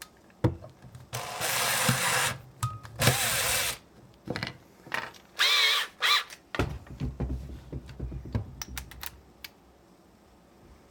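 Cordless drill with a hand-tightened chuck driving a screw in three short bursts of the motor, the last with the speed rising and falling, followed by a low rumble and scattered clicks.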